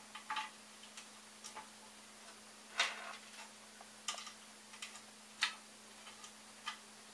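Scattered sharp clicks and taps of screws and hand tools against the parts as screws are fitted into the rod support of a 3D printer's Z axis, the loudest about three seconds in. A faint steady hum runs underneath.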